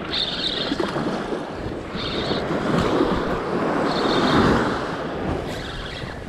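Surf washing onto the beach with wind on the microphone, the wash swelling about halfway through. A short high hiss recurs about every two seconds.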